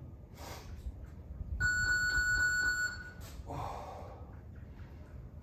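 Electronic interval-timer beeper sounding a quick run of beeps, about four or five a second, for just over a second, marking the start of a timed work interval. A breath is drawn shortly before it and another just after.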